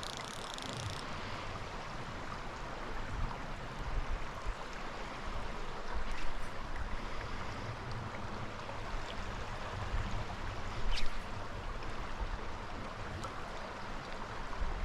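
Creek water running steadily over rocks, an even rushing sound, with a sharp click about eleven seconds in.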